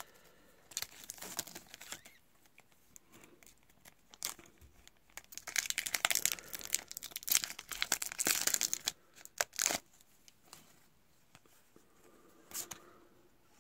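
Plastic wrapper of a Topps trading card pack being torn open and crinkled by hand. Irregular crackling rustles, loudest in the middle, then fainter rustling as the cards come out.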